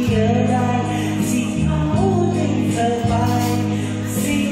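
A man and a woman singing a duet through microphones over amplified backing music, with sustained chords that change about once a second and a steady cymbal beat.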